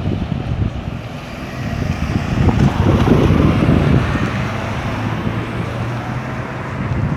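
Wind buffeting the microphone with a gusty low rumble, over outdoor street traffic; a vehicle engine hums steadily through the middle, as the rumble swells.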